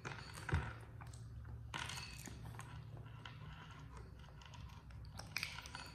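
Faint, wet chewing of a soft, sauce-covered banana, with scattered small clicks and smacks. A soft knock comes about half a second in.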